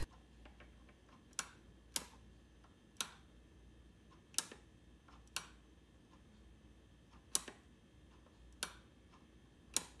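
Small snap-action limit switch clicking as its plunger is pressed and released by hand: eight faint sharp clicks spaced about a second apart, some with a softer second click just after.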